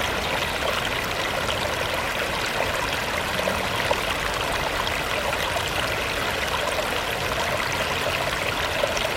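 Shallow river babbling over rocks: a steady rush of running water with fine, quick splashing flickers.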